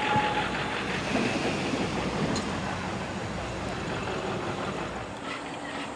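A steam train's whistle chord cuts off about half a second in, then the train rumbles and rolls past, the noise slowly fading.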